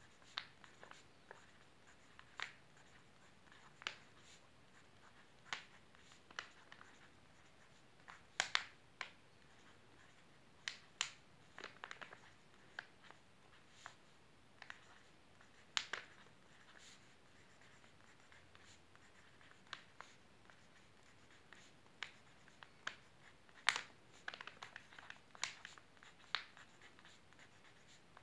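Pen writing on a white padded envelope: short, irregular strokes of the tip on the paper, with small pauses between letters.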